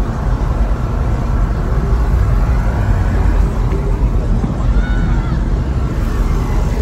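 Steady low rumble of car-show ambience: vehicle engines running, with faint distant voices.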